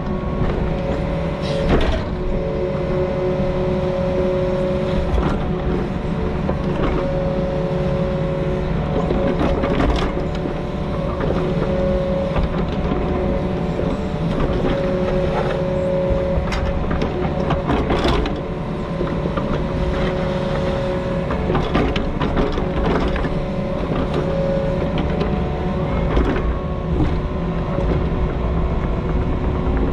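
Diesel engine of compact earthmoving equipment running steadily under load, with a steady whine over the engine and scattered clanks and knocks of metal.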